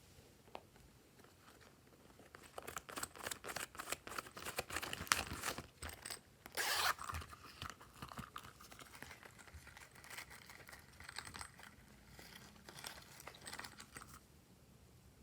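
Glossy slime being squished and stretched by hand: a dense run of small wet clicks and crackles, loudest about halfway through and thinning out near the end.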